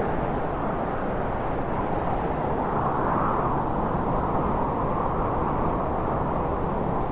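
Wind sound effect: a steady rush of wind that swells a little about three seconds in.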